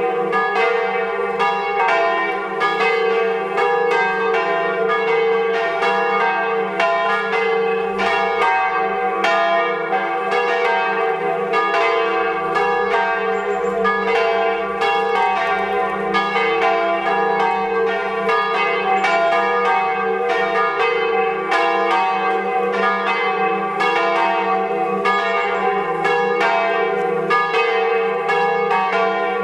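A ring of swinging church bells tuned in a diatonic scale of E-flat pealing together. Overlapping strikes come a couple or more a second, with a steady ringing hum under them.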